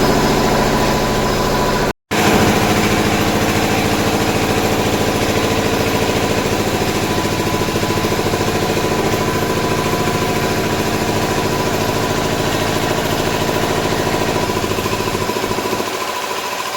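An engine running steadily at idle, with a brief cut in the sound about two seconds in.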